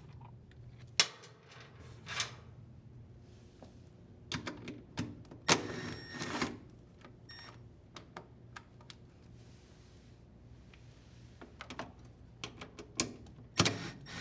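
Short runs of a cordless impact driver backing out screws from a washer's plastic belt cover, among scattered clicks and knocks of the screws and cover being handled.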